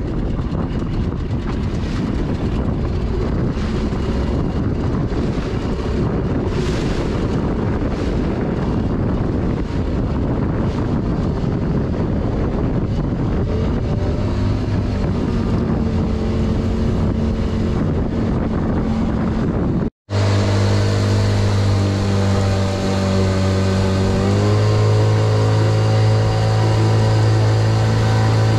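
Small boat's outboard motor running under way, with wind rushing over the microphone through the first two-thirds. After a break the motor sounds close and steady, and its pitch steps up a little a few seconds later as it speeds up.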